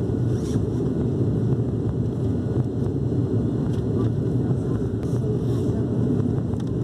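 Cabin noise of an ATR 72-600 climbing out after takeoff: the twin turboprop engines and propellers at climb power, a steady deep drone with an even hum that does not change in pitch.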